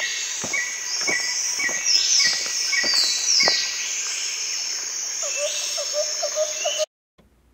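A steady, high-pitched chorus of insects, with regular footsteps on a dirt woodland path through the first half. The sound cuts off abruptly near the end.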